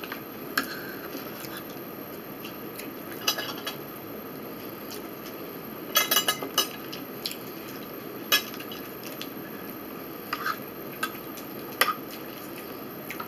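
Cutlery clinking and scraping against a bowl and plates while eating: scattered sharp clicks every second or two, with a quick run of several clinks about halfway through, over a steady room hiss.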